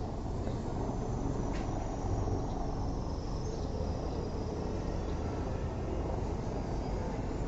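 Distant aircraft noise across an airfield: a steady low rumble with a faint high turbine whine that dips in pitch and rises again in the first few seconds.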